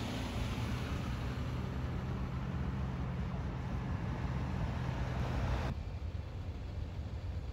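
Heavy tow trucks' diesel engines running in a line, a steady low engine hum over road and wind noise. A little before six seconds in it cuts abruptly to a quieter, duller rumble.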